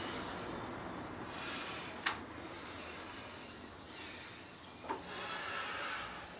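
Quiet, steady background noise with no voice, broken by a sharp tap about two seconds in and a fainter tap near the end.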